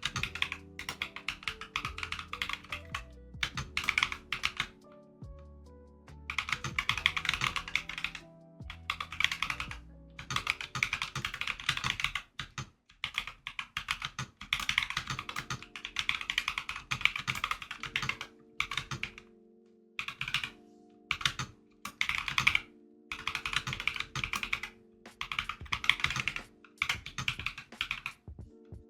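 Typing on a freshly built BasicBitch custom mechanical keyboard: fast clusters of key clacks in bursts of a few seconds with short pauses between, as a type test of the switches. Lofi music with sustained low chords plays underneath.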